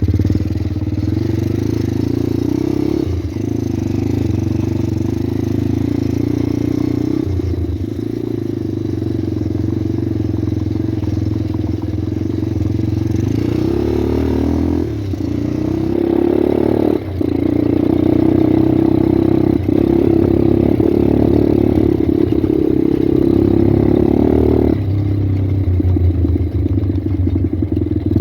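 Pit bike's small single-cylinder four-stroke engine running while being ridden, its note rising and falling several times with throttle and gear changes.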